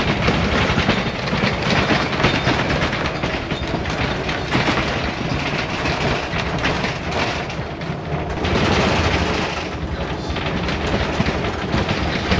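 1983 Unimog U1700L ex-army truck driving over badly corrugated dirt road: a loud, continuous rattling and drumming shake of the truck and its camper body over the ruts, under the running noise of the truck.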